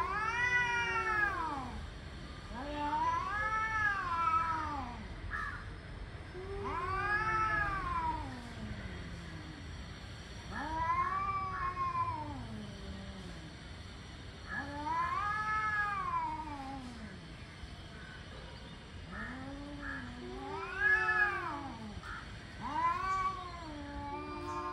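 Male cats caterwauling in an aggressive standoff before a fight: long drawn-out yowls that rise and fall in pitch, seven of them, one every three to four seconds.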